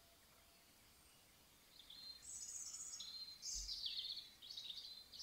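Near silence, then about two seconds in a small songbird starts singing: a run of high, quickly changing chirpy phrases with short gaps between them.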